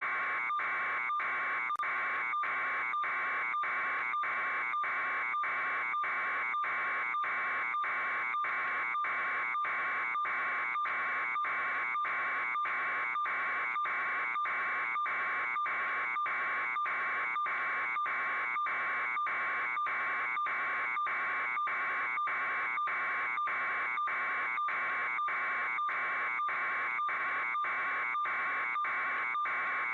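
An electronic alarm buzzer sounding in a fast, even, unchanging pulse.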